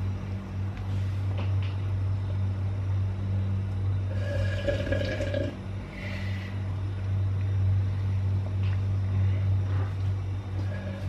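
A steady low hum runs throughout, with a brief pitched sound about four seconds in.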